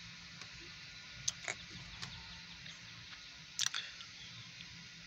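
Faint, steady low hum of a quiet car cabin, broken by small sharp clicks from a hand-held phone, about a second in and again past the middle.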